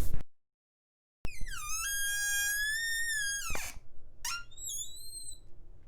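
A sharp click, then a long high squeak that dips, holds steady for about a second and a half and slides down. Two shorter, higher squeaks follow about a second later.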